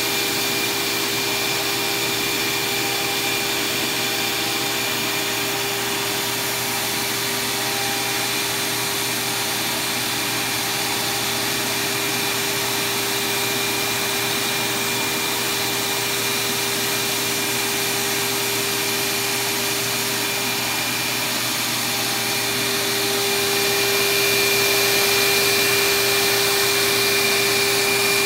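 CNC router spindle on a flatbed cutting table running at high speed while milling a sheet, a steady whine over a continuous broad hiss, growing somewhat louder about 23 seconds in.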